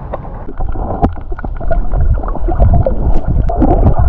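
Seawater sloshing and splashing against a camera held at the water's surface. There is a muffled low rush with scattered sharp splash clicks, growing louder about halfway through as the camera dips into the water.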